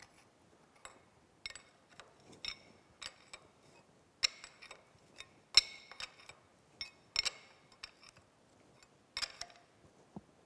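Steel combination wrenches clinking against each other and against the jam nuts as the jam nuts on a boring mill's gib adjusting screws are tightened, locking the gib adjustment. Irregular sharp metallic clinks, a dozen or so, each with a brief ring.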